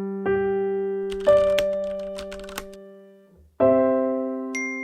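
Background music: piano-like keyboard chords struck and left to ring and fade, three in turn, with a few light clicks in the middle.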